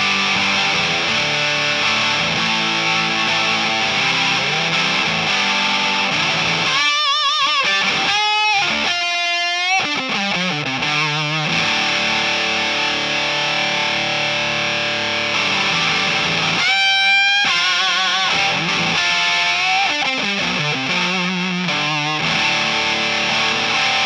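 Electric guitar played through the O.C.E. Hammer, a Big Muff-style fuzz pedal: thick fuzzy chords, broken twice by high lead notes with wide vibrato, about seven seconds in and again past the middle.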